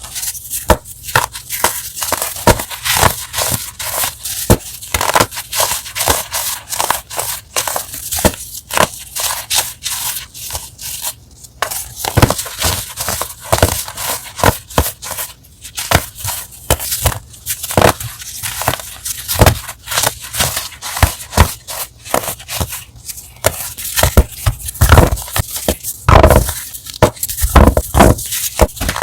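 Crunchy chalk being crushed close to the microphone: a dense run of sharp, irregular crunches with no pause.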